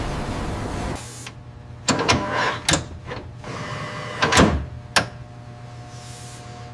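A loud rushing noise cuts off about a second in, leaving a steady machine hum with a handful of sharp knocks and clatters.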